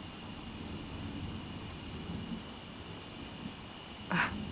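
Night insects, crickets among them, trilling steadily at a high pitch, with a still higher chirping that comes and goes. A short sharp sound about four seconds in.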